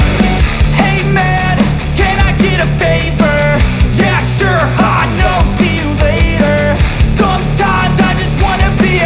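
Loud rock background music with a steady drum beat under a melody line that slides and steps in pitch.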